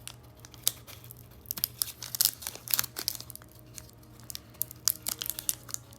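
Foil wrapper of a Pokémon card booster pack crinkling and tearing as it is handled and opened, in quick irregular crackles.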